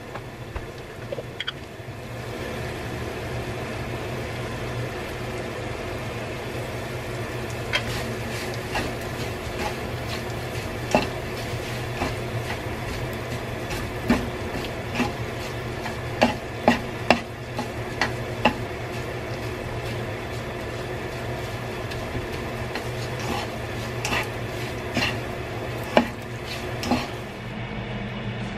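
Shredded dried filefish in gochujang sauce sizzling in a nonstick pan while a utensil stirs it, scraping and knocking against the pan. The knocks come often through the middle and later part, over a steady low hum.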